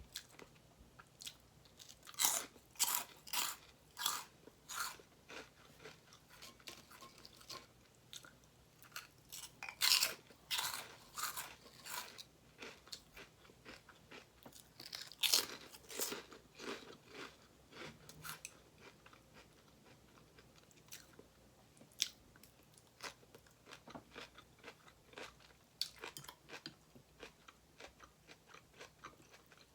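Close-miked eating of crisp food: bites and crunchy chewing in three loud runs, about two, ten and fifteen seconds in, with quieter chewing in between and after.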